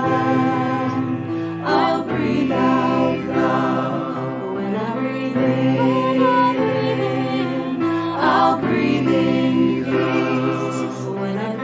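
Small mixed choir of men's and women's voices singing a slow piece in harmony, with long held notes.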